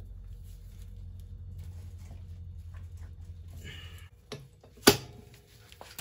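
Socket ratchet working the nuts on an ATV's rear brake drum hub, a rapid steady clatter for about four seconds. Then a single sharp metallic clank about five seconds in.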